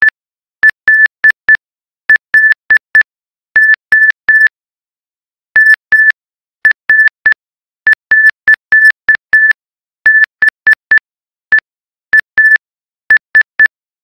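Computer-generated Morse code tone from MATLAB: a single high-pitched beep keyed on and off in short dots and longer dashes, with silent gaps between letters and words. It spells out the message "Hello Mr.Beast".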